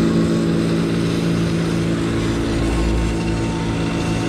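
Concrete pump truck's diesel engine running steadily at constant speed, a steady droning hum.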